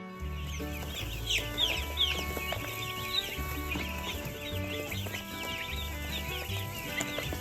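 Chickens calling: many short, high, falling chirps overlapping continuously, over background music.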